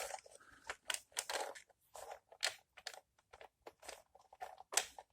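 Scattered light clicks and taps of a small plastic HO-scale model passenger car and its coupler being handled on a work surface while the coupler is checked.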